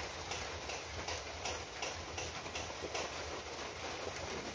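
Faint, short ticking clicks, about two to three a second, over a steady low hum.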